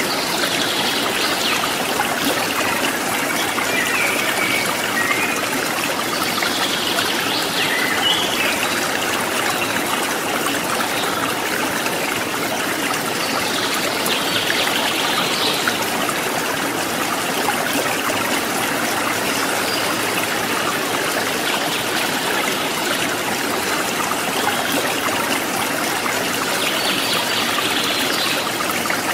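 Steady rushing, trickling water noise, like the flow of an aquarium's water circulation, with a few brief higher-pitched sounds rising above it now and then.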